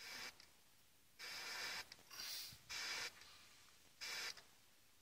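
Car radio FM tuner stepping through empty frequencies, giving several short bursts of static hiss separated by quiet, muted gaps.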